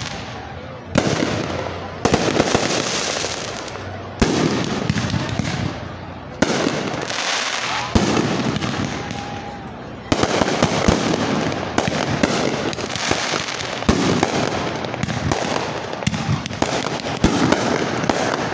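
Fireworks display: sharp reports from bursting shells, each trailing off into a long crackling hiss, every one to two seconds. About ten seconds in, they give way to a dense run of bangs and crackle.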